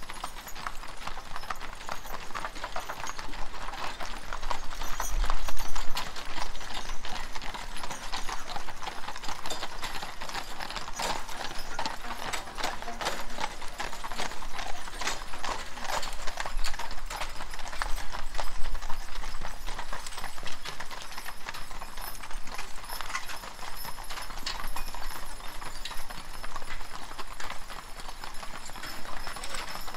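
Hooves of horse and mule teams clip-clopping on a paved road as they pull covered wagons, a steady stream of hoofbeats that swells louder about five seconds in and again near the middle as teams pass close.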